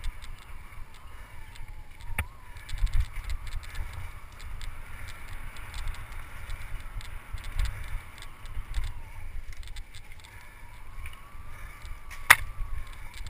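Mountain bike ridden fast over a dirt singletrack: tyres rumbling over the ground, with a steady low buffeting and many small rattles and clicks from the bike. Two sharp knocks, one about two seconds in and a louder one near the end, as the bike hits bumps.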